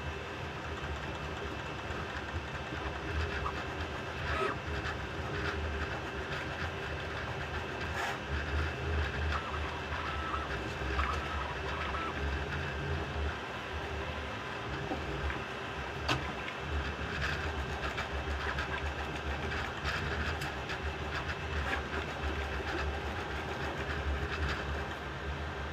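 Bambu Lab A1 Mini 3D printer running: a steady hum of its fans with short whirring tones from the stepper motors and a few light clicks.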